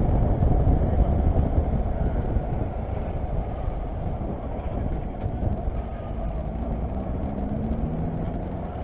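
Kawasaki Versys motorcycle being ridden in traffic: a dense rumble of engine and wind rush that grows gradually quieter as the bike slows down.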